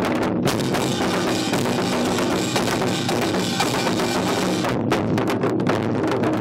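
An ensemble of Korean buk barrel drums beaten fast with sticks. About half a second in the beats merge into a dense, continuous roll, which breaks back into rapid separate beats near the end.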